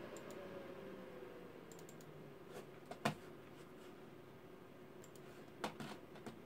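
Desktop PC's case fans running with a steady low hum, and a faint tone sliding down in pitch near the start. A few sharp mouse clicks come about three seconds in and again near the end.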